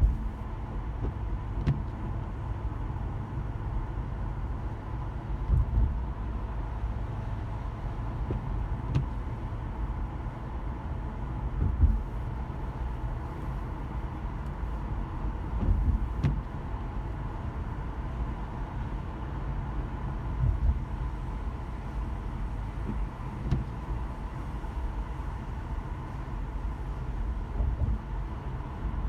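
Car driving in traffic, heard from inside: a steady low rumble of engine and tyres, with a few short dull thumps every several seconds.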